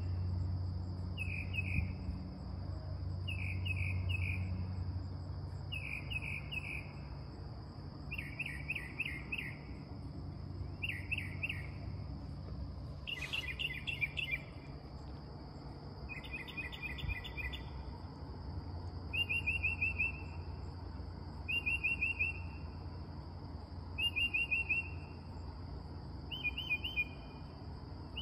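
Northern mockingbird singing at night: short phrases about every two and a half seconds, each a rapid run of repeated notes, with the phrase type changing every few phrases. A steady high insect drone and a low hum run underneath, and a single click comes about thirteen seconds in.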